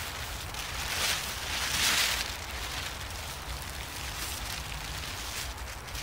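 Plastic tarp rustling and crinkling as it is shaken out and laid flat on snow, with a louder burst of crackling about two seconds in.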